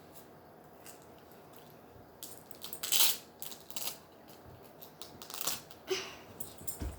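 Close handling noise: a run of crinkling, rustling and sharp clicks starting about two seconds in, loudest about a second later, then more scattered rustles.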